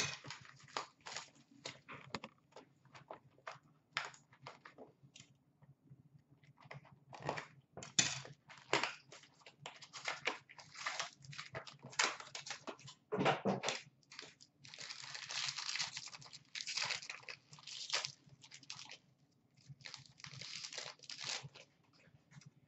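A trading-card box being unwrapped and opened by hand: an irregular run of crackles and rips from plastic wrapping and cardboard, with a few longer rustling tears partway through.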